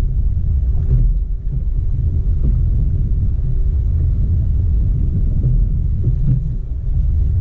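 Boat under way on open water: its outboard motor running steadily under a heavy low rumble of wind on the microphone, with a faint steady engine hum above it.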